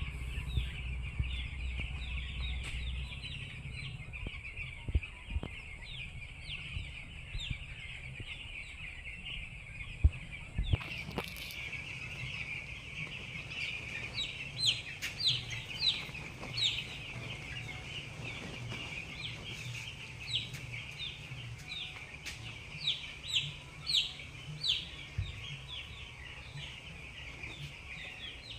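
A large flock of poultry chicks peeping: a dense, continuous chorus of short, high, falling cheeps, with single louder peeps standing out in the second half.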